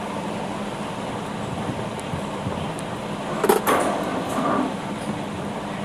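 Small clicks and knocks from a Phillips screwdriver and a fog lamp's housing being handled, bunched about three and a half seconds in, over steady background noise.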